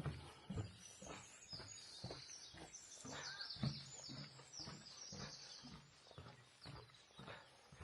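Small birds chirping, a quick run of high twittering notes in the middle, over irregular soft low thuds.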